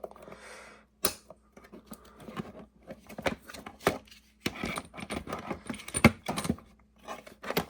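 Metal hand tools, ratchets and sockets, being handled: irregular clinks, clacks and rattles, with one sharper knock about six seconds in.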